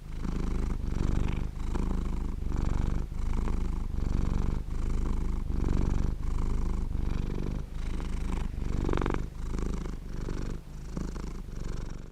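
A sixteen-year-old cat snoring in deep sleep: a low rumbling sound in even pulses, about three every two seconds. One pulse about nine seconds in is louder and harsher than the rest.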